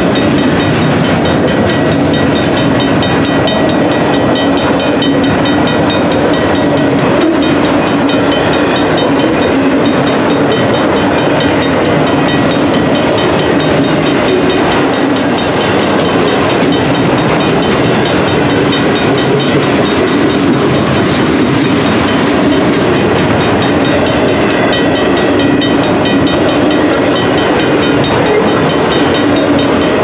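Freight train's multilevel autorack cars rolling past close by: a loud steady rumble and rattle of steel wheels on rail, with a regular clicking and a thin steady high tone running through it.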